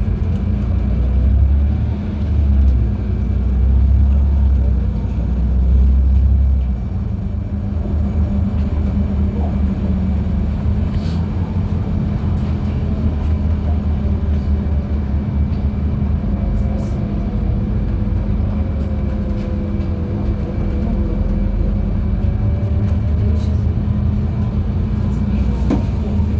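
Inside a LiAZ-5292.71 natural-gas city bus under way: steady low engine and road rumble, heavier and pulsing for the first seven seconds or so, then evening out.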